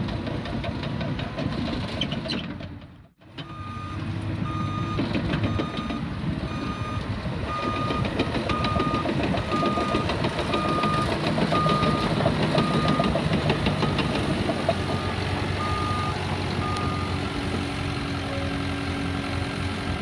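Diesel engine of a Cat D3K2 XL crawler dozer running as the machine moves, with its backup alarm beeping steadily, roughly once a second, from a few seconds in until near the end. The sound cuts out briefly about three seconds in.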